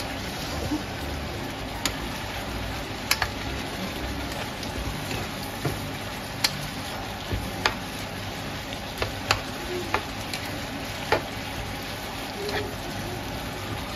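Beef slices and onions sizzling steadily as they are stir-fried in a frying pan, with sharp clicks of the spatula knocking and scraping against the pan at irregular intervals.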